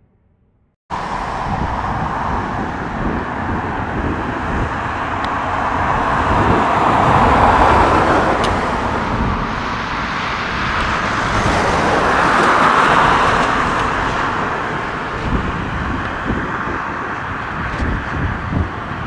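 Helicopter turbine and rotor noise, cutting in about a second in and swelling twice as it runs.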